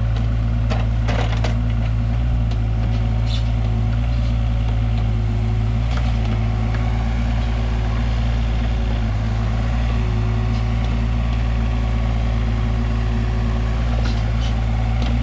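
Kato 35 mini excavator's diesel engine running steadily under digging load, with a hydraulic whine that comes and goes and a few sharp cracks and scrapes as the bucket works rock and earth.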